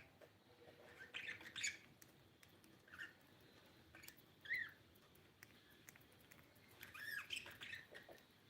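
Pet budgerigars giving short chirps and squawks in scattered bursts: a cluster about a second in, single calls near three and four and a half seconds, and another cluster around seven seconds, with quiet gaps between.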